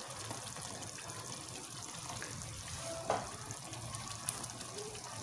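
Hot oil sizzling steadily in a frying pan of onion-tomato masala with freshly added yogurt and ground spices, as the masala starts to fry. A short click about three seconds in.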